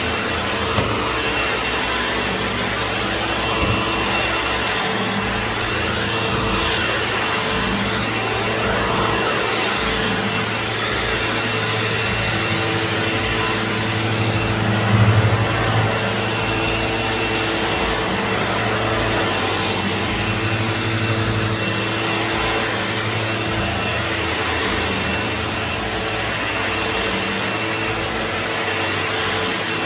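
SEBO Automatic upright vacuum cleaner running steadily while it is pushed over carpet, a constant motor hum with a brief louder surge about halfway through.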